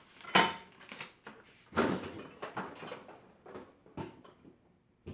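Handling noises: a sharp click about half a second in, then a rustling scrape around two seconds in and a few small knocks.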